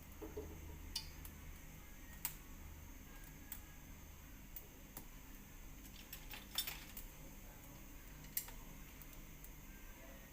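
A few light, sharp clicks and clinks of kitchen utensils over a faint steady hum.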